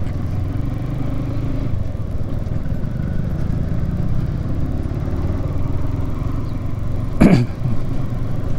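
Yamaha R15M's single-cylinder engine running steadily while riding at an even pace. About seven seconds in, a brief loud sound sweeps down in pitch.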